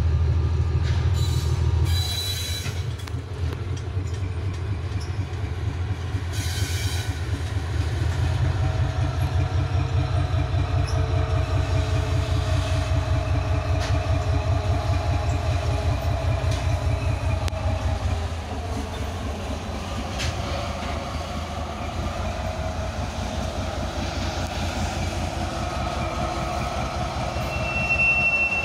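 TGM4B diesel-hydraulic shunting locomotive with its engine running in a deep, pulsing rumble while it hauls a string of hopper wagons past. The rumble eases about two-thirds of the way through. The wagons' wheels clatter on the rails with thin wheel squeals.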